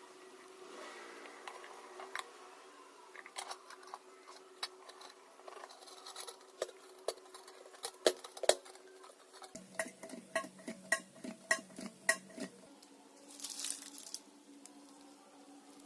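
Light metallic clicks and clinks of thin tin-can metal, irregular at first, with a run of quicker, fairly regular ticks in the middle.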